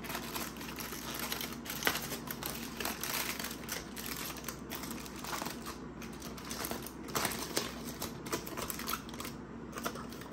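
Aluminium foil crinkling and crackling as it is pulled open by hand, in a quick irregular run of sharp crackles.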